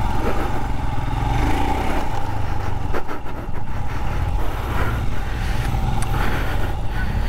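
Motorcycle engine running under throttle as the bike is ridden over a dirt track, easing off briefly about three seconds in.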